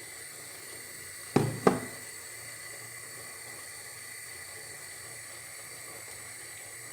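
Two sharp knocks of cookware, about a third of a second apart, a little over a second in, over a steady low hiss.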